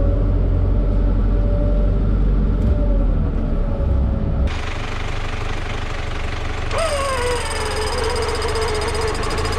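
Off-road 4x4 engine running with a low rumble; about seven seconds in it revs up briefly and then settles back.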